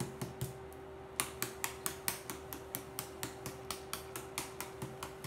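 Plastic applicator bottle of hair colour remover being shaken to mix, clicking in a quick, even rhythm of about four or five a second, over a steady hum.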